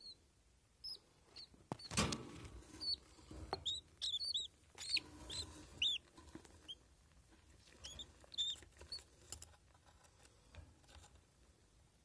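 Budgerigar chicks giving short, high chirps, scattered through the first three quarters and fading out near the end, with a sharp knock about two seconds in and some scuffling noise just after.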